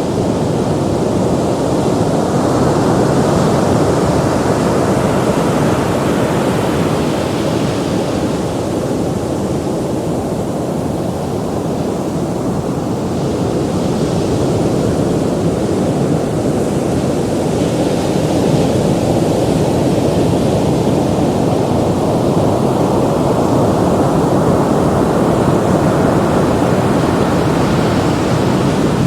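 Ocean surf: a continuous rush of breaking waves, mostly low and deep. It swells and eases slowly over several seconds, louder near the start and again near the end.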